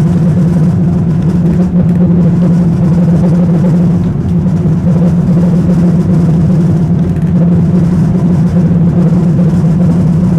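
Vintage tram running along its track, a steady rumble of wheels and running gear with a constant low hum from the drive.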